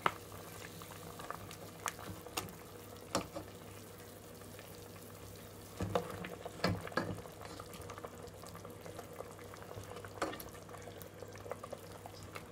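A ladle stirring and scooping through a pot of simmering meat stock, with occasional knocks of the ladle against the stainless steel pot and a steady low hum underneath.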